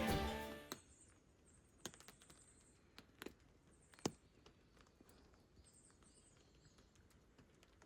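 Background music fading out in the first second, then faint woodland ambience: birds chirping high and distant, with a few brief sharp clicks, the loudest about four seconds in.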